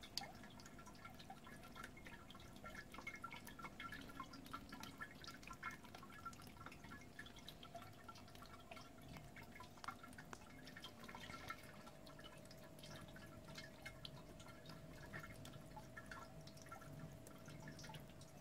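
Faint water dripping and trickling from a small 3D-printed fountain, many small drops falling at irregular intervals, over a faint steady hum.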